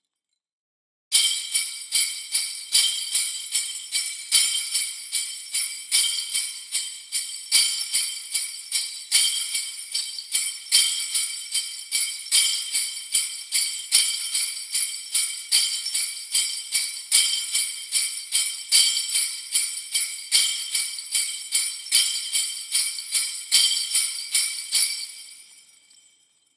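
Sleigh bells jingling in a steady shaking rhythm, about two shakes a second. They start abruptly after about a second of silence and fade out near the end.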